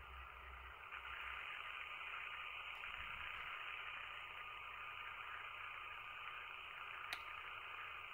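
Faint steady background hiss of room tone with a thin steady whine under it, and one small sharp click about seven seconds in.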